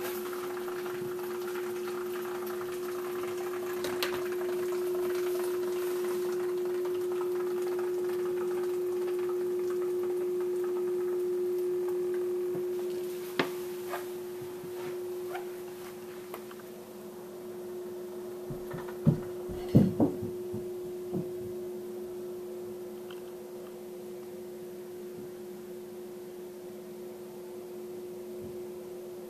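Steady hum of a reef aquarium's running pumps, with water splashing and trickling over it for the first dozen seconds. A few sharp knocks fall near the middle.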